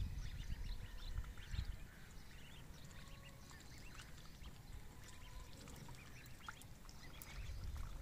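Ducklings peeping, short high calls scattered throughout, over a low rumble that is loudest at the very start and again near the end.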